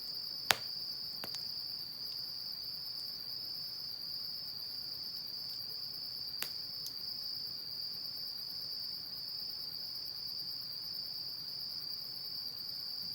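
A steady, unbroken high insect trill, with a few sharp pops from the wood fire, the loudest about half a second in.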